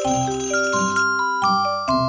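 ZTE WeGo (S155) phone ringtone playing: a quick electronic melody of bell-like tones over low bass notes, its short phrase starting over near the end.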